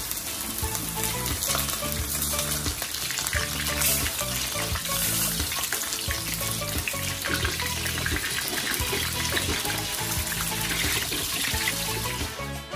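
Hot oil sizzling steadily around a whole sheri (emperor) fish frying in a wok, the sizzle starting as the fish is laid into the oil.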